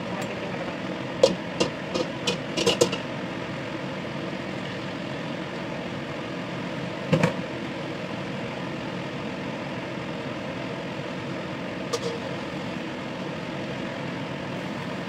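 Steady hum of a kitchen on a gas stove, with oil and then beaten egg frying in a stainless-steel wok. A quick run of sharp utensil clicks comes between about one and three seconds in, then a single louder knock at about seven seconds and a lighter one near twelve.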